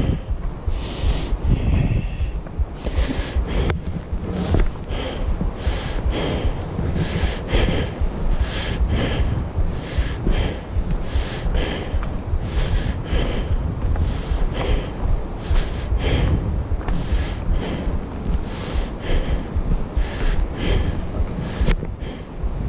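A hiker walking a forest trail: rhythmic hissing of breathing and footsteps about twice a second, over a steady low rumble of wind on the microphone.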